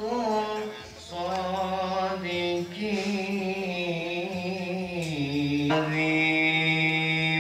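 A solo voice chanting in long, drawn-out melodic phrases, with slow glides between held notes and short breaths for air about a second in and near the six-second mark, in the manner of Islamic devotional chanting.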